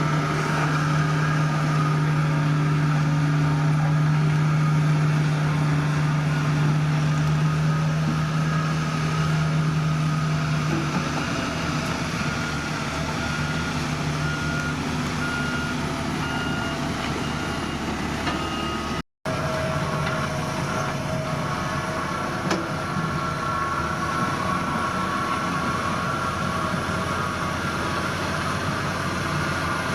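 Diesel engines of heavy construction machinery running steadily, with a reversing alarm beeping in a regular series for a few seconds near the middle. The sound cuts out for an instant about two-thirds of the way through.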